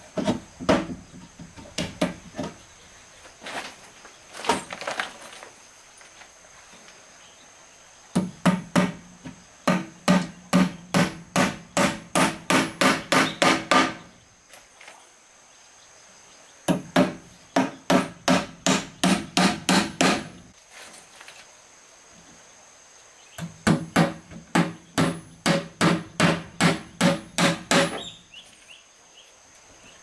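Hammer driving nails into the wooden boards of a cupboard top, in three runs of quick strikes at about three a second, with a few scattered knocks in the first seconds.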